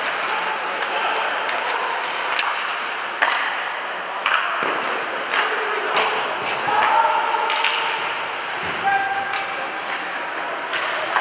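Live ice hockey play in a rink: a steady wash of skates scraping the ice and crowd noise, broken by a handful of sharp clacks and thuds from sticks, the puck and the boards, with a few brief shouts.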